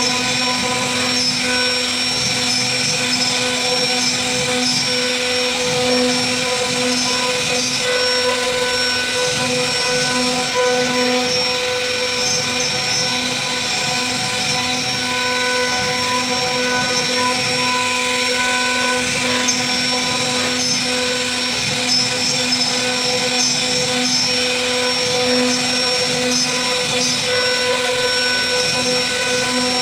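CNC wood router spindle running with a steady high-pitched whine as its bit carves a relief into a wooden panel, over an even hiss of cutting.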